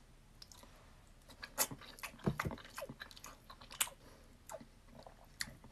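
A person chewing food close to the microphone: faint, irregular mouth clicks and small crunches.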